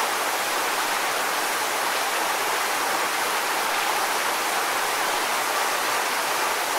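Waterfall: a steady, unbroken rush of falling and splashing water.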